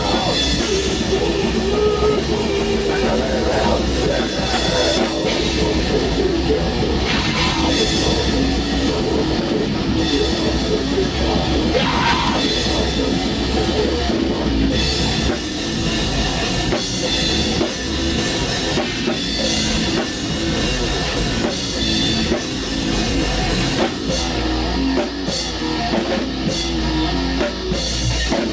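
Black metal band rehearsing live: a drum kit and electric guitar play loud and continuously through a song.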